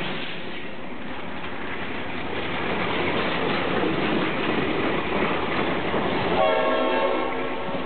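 Passing train: steady rumble and rattle of the cars on the rails, with a short horn blast lasting about a second, starting about six and a half seconds in.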